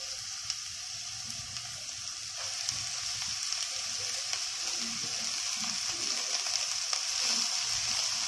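Oil sizzling steadily in a frying pan of sautéed onion, growing louder from about two seconds in as chopped white radish leaves are tipped in.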